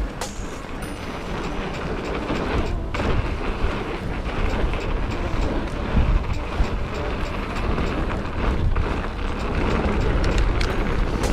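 Mountain bike riding down a dirt singletrack: tyres rolling and the bike rattling over the ground, a steady rumble with scattered knocks.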